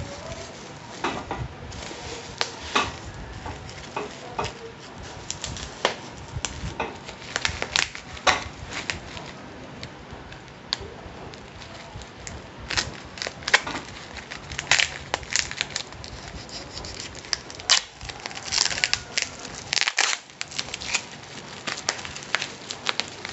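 Bubble wrap around a cardboard parcel crinkling and crackling as it is handled and cut open with a knife: many irregular sharp crackles, some louder than others.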